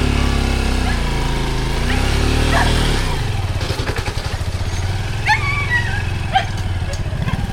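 Small motorcycle engine slowing, then idling with a steady pulsing beat from about three seconds in. A dog barks and yelps a few times in the second half.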